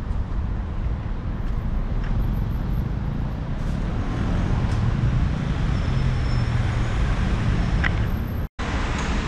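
Road traffic: cars driving past on a city street, a steady noise of engines and tyres. The sound cuts out completely for a split second near the end.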